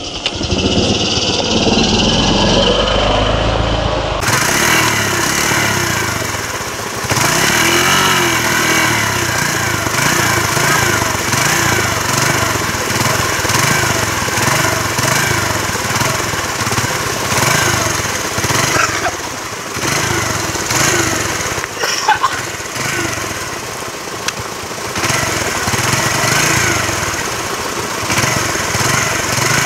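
A small vehicle engine running nearby, its pitch rising and falling over and over as it revs unevenly.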